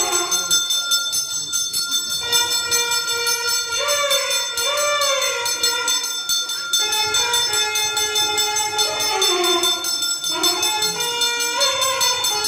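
Temple bell ringing rapidly and continuously during the arati, the lamp-waving worship before the goddess, over a melody with sliding notes.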